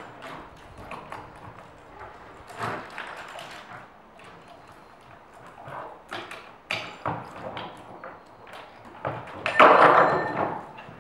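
Scattered metallic clicks, taps and knocks of hands and tools working on chainsaws laid on tables, with a louder clatter lasting about a second near the end.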